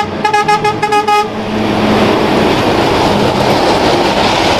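Heavy truck's horn tooting in a rapid string of short blasts for about the first second. Then the steady rushing noise of the truck and its trailers passing.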